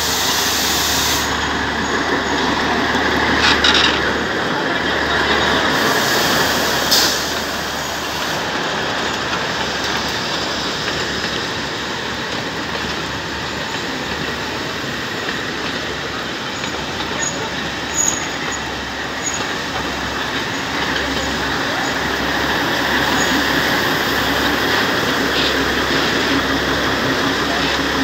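A narrow-gauge diesel train of the Matheran Hill Railway passing close by. Its locomotive engine runs and its coaches roll over the rails in a loud, steady rumble.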